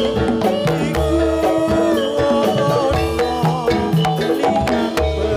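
Loud jathilan accompaniment music. Metallophone-like melody notes and a wavering melody line play over drums and a repeating bass line that keep a steady beat.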